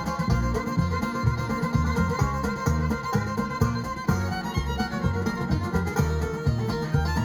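A string band playing a bluegrass-style instrumental passage: fiddle to the fore over guitar, with bass and percussion keeping a steady beat.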